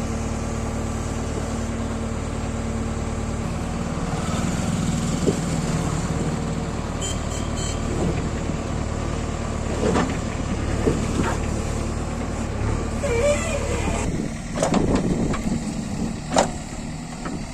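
JCB 3DX backhoe loader's diesel engine running steadily, working harder from about four seconds in, with several sharp knocks and clanks from the machine in the second half. The steady engine hum breaks up near the end.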